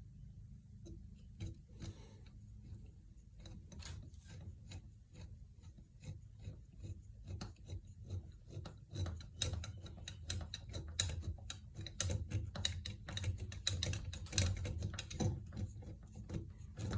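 Irregular mechanical clicking and rattling, sparse at first and growing denser and louder about halfway through, over a steady low hum.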